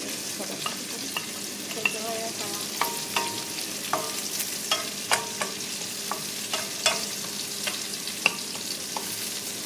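Chopped garlic sizzling in melted butter in a hot pan, with a utensil clicking and scraping against the pan at irregular intervals as it is stirred.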